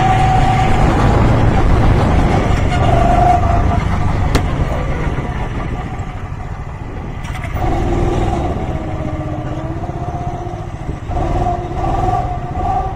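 Small go-kart engine running at speed, with a steady tone, then easing off about five seconds in as the kart slows into the pits. Quieter engine tones waver up and down around eight seconds in and again near the end.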